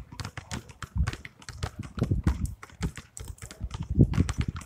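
Several basketballs being dribbled on asphalt at once, a dense, uneven patter of overlapping bounces, loudest about four seconds in.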